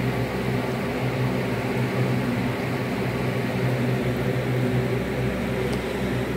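Cat purring close by, a steady low rumbling hum.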